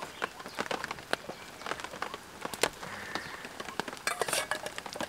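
Irregular sharp crackles and pops from cooking over a wood fire.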